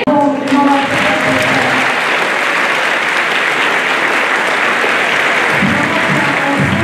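A group's singing ends within the first second or so, then a large crowd applauds steadily. A low pitched musical sound comes in near the end.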